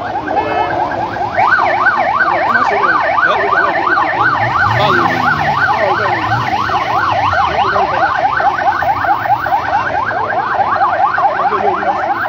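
Electronic siren of a convoy escort vehicle sounding a fast yelp, its pitch swinging up and down about three times a second. It starts about a second and a half in and speeds up in the second half.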